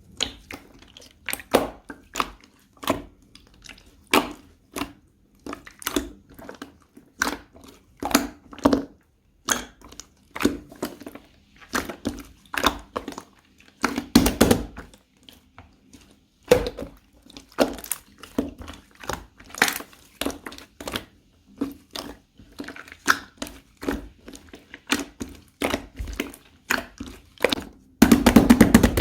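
Slime being squeezed and pressed by hand, giving repeated crackly squishes and pops about every half second, with a longer, louder squish about halfway through and a dense run of crackling near the end.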